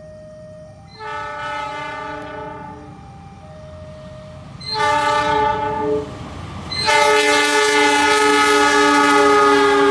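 Locomotive air horn sounded three times: a fainter blast about a second in, a louder, shorter one near the middle, then a long loud blast held on through the end.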